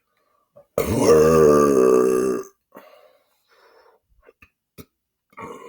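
A man's long, loud belch about a second in, pitched and wavering, lasting about a second and a half. It is followed by a few faint clicks and a quieter sound near the end.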